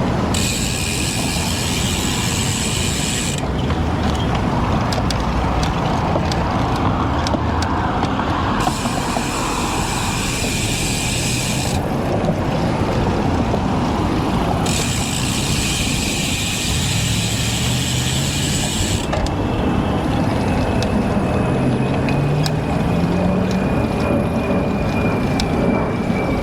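Road bike's rear freehub buzzing as the rider coasts, in three stretches of a few seconds, with pedalling between them. Steady wind rush on the microphone throughout. A passing motor vehicle rises in pitch in the second half.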